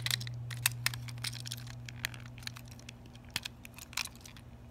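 Irregular small plastic clicks and taps from handling a TOMY Thomas toy engine while prying at its hard-to-open battery case, over a steady low hum.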